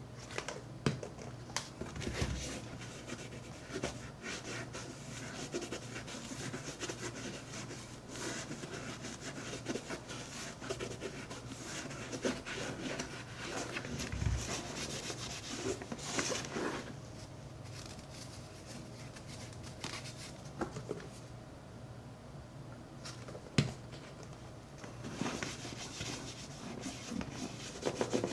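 Leather of a Red Wing 8080 boot being scrubbed with shoe cleaner: continuous rubbing and scratching with small ticks, a few soft knocks, and one sharper click about two-thirds of the way in.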